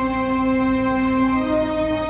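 Live band music over a concert PA: long held notes that step up to a higher note about one and a half seconds in.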